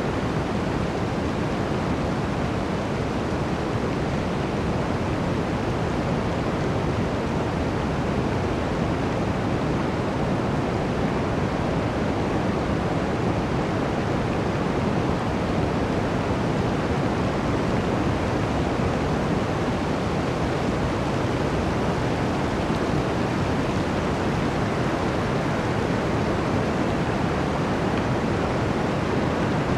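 Blizzard wind blowing steadily through a forest, an even noise that holds at one level throughout.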